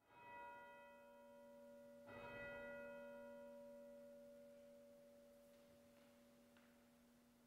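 A single bell, faint, struck twice about two seconds apart, each stroke ringing on in a long, slowly fading tone: the altar bell rung at the elevation of the Host after the consecration.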